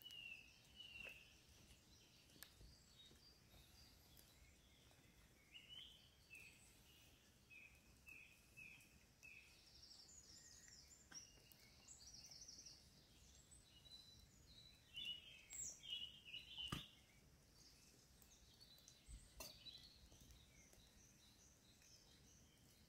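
Quiet woodland with faint birdsong: scattered short chirps, then a quicker run of higher notes in the middle. A single sharp click about three-quarters of the way in.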